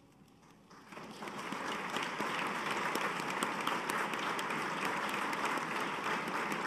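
Audience applause breaks out about a second in and swells quickly to steady clapping from a full room.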